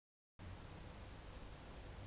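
Dead silence for about a third of a second, then a faint steady hiss with a low hum: the camera's own background noise, with no distinct sound events.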